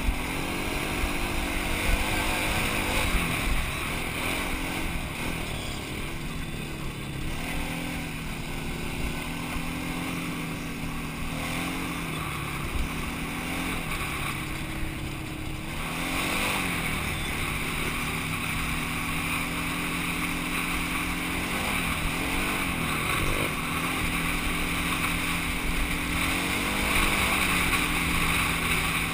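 Quad ATV engine running at a steady pace along a rough trail, its pitch dipping and rising briefly a few times as the throttle is eased and reapplied, over constant rushing noise.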